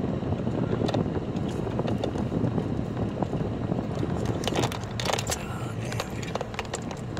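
Steady car-cabin noise of a car driving slowly: engine and tyre rumble, with a few short clicks about halfway through.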